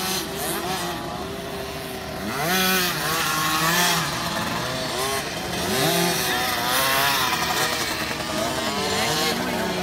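Two-stroke engines of 50cc youth motocross bikes racing past, revving up and dropping back several times as the riders accelerate and shift.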